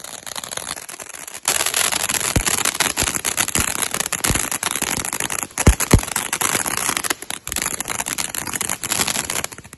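Ground fountain firework (a flowerpot) spraying sparks with a loud hiss and dense crackling. It surges about a second and a half in, and a handful of sharper pops stand out from the crackle.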